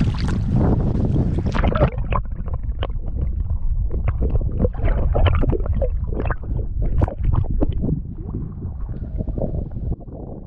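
Wind buffeting the microphone as a low rumble, with water splashing and gurgling close to the camera at the river's surface. The sound dulls about two seconds in and grows quieter near the end.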